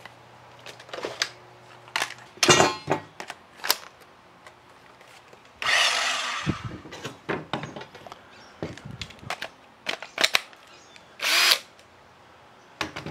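Ridgid cordless power tools being handled: clicks and knocks as battery packs are fitted, a brief run of the cordless circular saw about six seconds in, and a short trigger pull of the cordless drill near the end.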